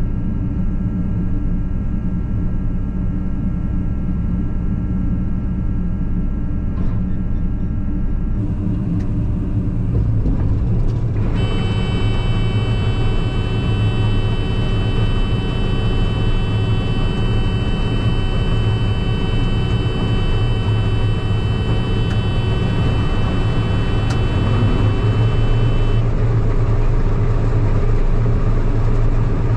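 Combine harvester running with a steady low engine drone. About ten seconds in it grows a little louder, and high whining tones join it until about twenty-six seconds in.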